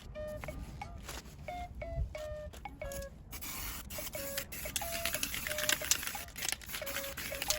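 Light background music of short, evenly paced notes forming a simple melody, with irregular scraping noises underneath.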